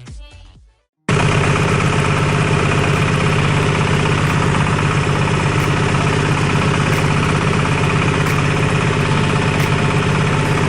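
Engine of an agricultural sprayer machine running steadily at constant speed, with an even hiss over it. It starts suddenly about a second in after a short fading bit of music.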